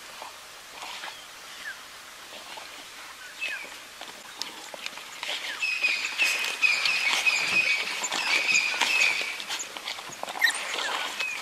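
African wild dogs squeaking and twittering at a kill: short high chirps scattered throughout, and a louder run of high, wavering squealing from about halfway through to near the end, amid clicks and rustles from the feeding.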